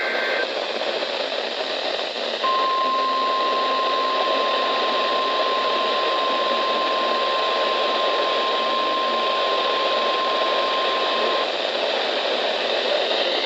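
NOAA Weather Radio broadcast over heavy receiver static. The two-tone warble of a SAME data burst ends half a second in. About two seconds later the 1050 Hz weather radio warning alarm tone starts and holds steady for about nine seconds: the alarm sounded for a required weekly test.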